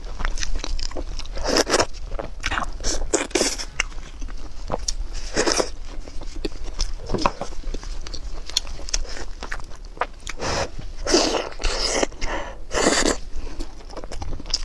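Close-miked eating: wet chewing and mouth sounds mixed with gloved hands tearing apart saucy braised meat, in irregular bursts.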